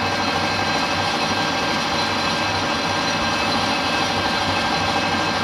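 Metal lathe running a cutting pass on aluminium bar stock: a steady machine hum with a few thin, constant whining tones over it.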